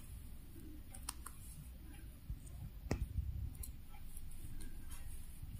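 Quiet handling of yarn and a crochet hook during crocheting: a faint low rumble with a few small, sharp clicks.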